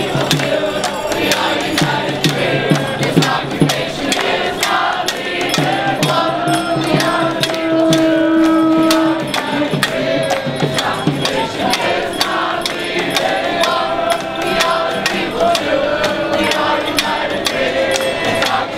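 Voices singing together in a chant-like song over steady percussion, with one long held note about eight seconds in.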